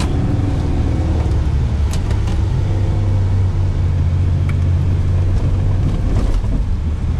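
SUV driving across sand, heard from inside the cabin: engine and tyre noise make a steady low drone.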